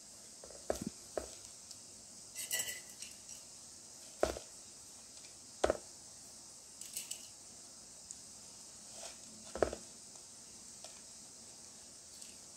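Scattered light taps and clinks of a knife and burfi pieces against stainless steel plates as cut squares of coconut burfi are lifted out, about half a dozen sharp taps spread out, with a short scrape between two and three seconds in.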